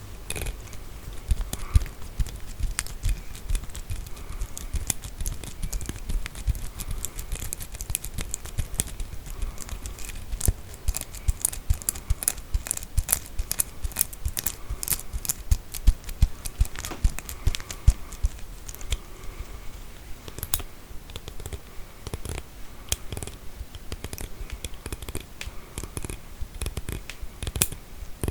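Combs being handled for ASMR: a dense, irregular run of sharp clicks and taps, busiest in the middle stretch.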